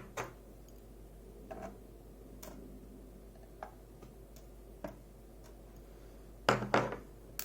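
Scattered small metallic clicks and taps as the tiny pins of a high-security lock are picked out of their chambers during disassembly, with a louder clatter of clicks near the end.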